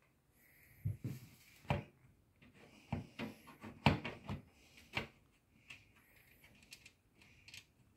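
Knocks and clicks of a 240 mm radiator-and-fan assembly from a closed-loop CPU cooler being pushed and shifted against the top frame of a PC case. The knocks are densest from about a second in to about five seconds, then thin to a few faint ticks.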